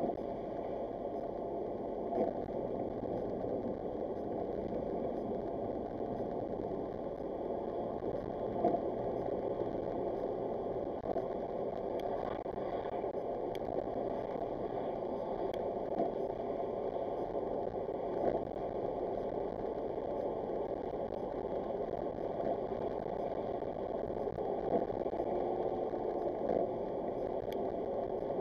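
Steady road and tyre noise heard inside a car driving at about 30 mph on a wet road, the tyres hissing through surface water, with a few faint clicks.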